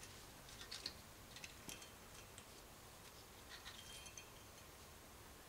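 Faint metallic clicks and ticks of new brake pad retaining clips being pressed into place on a Toyota Echo's front disc brake caliper bracket, a few scattered clicks about half a second in, near two seconds and around four seconds.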